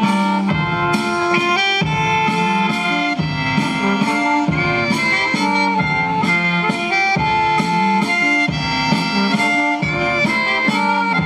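Music for a Catalan giant's dance played over a loudspeaker: a tune with a melody over a steady beat.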